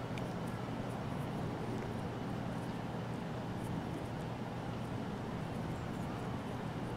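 Steady low rumble of outdoor background noise, with a few faint, short high ticks scattered through it.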